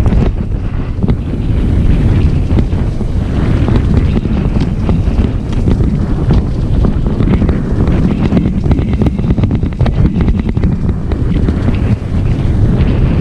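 Heavy wind buffeting on the microphone of a moving enduro dirt bike, loud and steady, with a low engine rumble underneath. A quick run of sharp clicks about nine seconds in.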